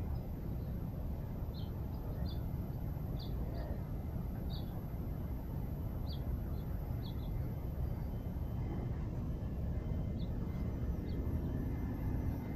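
A small bird chirping in short single high notes, about a dozen scattered irregularly, over a steady low outdoor rumble.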